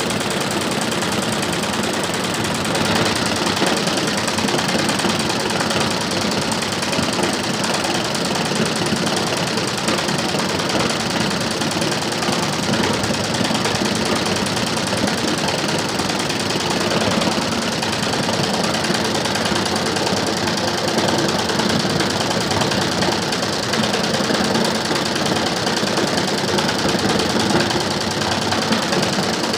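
Computerized multi-needle embroidery machine stitching at speed: a fast, even rattle of needle strokes that runs steadily.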